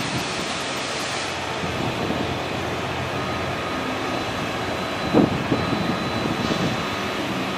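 Crane truck's diesel engine running steadily, driving the hydraulics of a telescopic crane as it hoists its hook, with a short knock about five seconds in.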